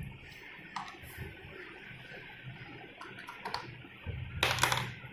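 Faint clicks and taps of hands and tools working on a washing machine's base and motor mounts, then a louder scraping rustle about four seconds in that lasts under a second.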